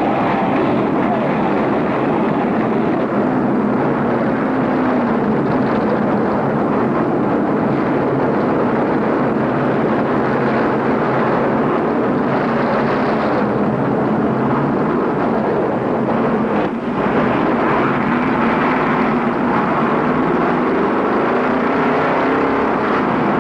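A field of stock-car V8 engines running together, a dense steady rumble with engines revving at times. The sound dips briefly about seventeen seconds in.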